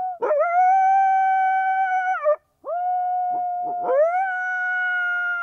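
Canine howling: a series of long, drawn-out howls, each swooping up at the start, holding one steady pitch for a second or two and dropping away at the end, with a brief break about halfway through.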